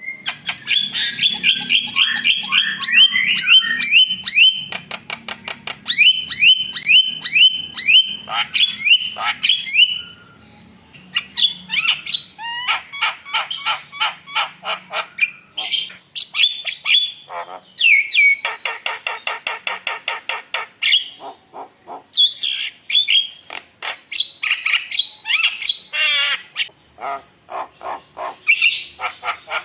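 Javan myna singing in full voice: rapid, varied chattering phrases of repeated harsh notes and sweeping whistles, pausing briefly about ten seconds in.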